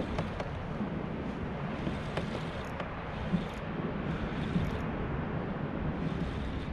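Steady wind rumbling on the microphone over open water, with a few faint ticks.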